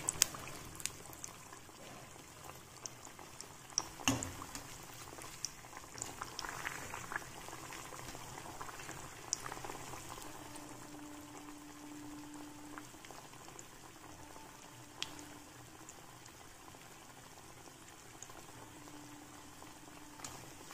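Kachoris deep-frying in hot oil in a kadhai on a medium flame, a steady low bubbling and sizzling. A few light knocks sound over it, one about four seconds in and another around fifteen seconds.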